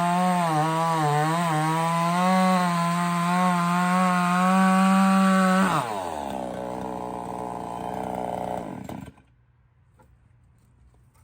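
Chinese-made 58cc two-stroke chainsaw at full throttle, cutting through a thick red oak log, its pitch wavering under load. Almost six seconds in the throttle is released and the revs fall to idle, and about three seconds later the engine stops.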